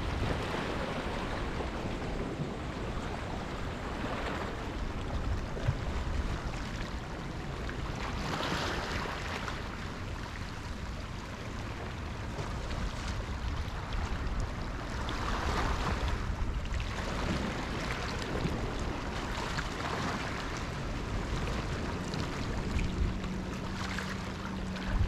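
Sea waves washing in, surging every few seconds, with a low wind rumble on the microphone.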